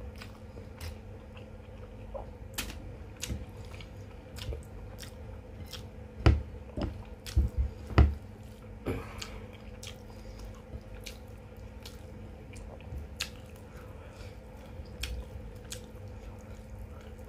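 Close-up eating sounds: a person chewing a mouthful of chicken and rice, with many wet mouth clicks and a few louder knocks about six to eight seconds in. A faint steady hum runs underneath.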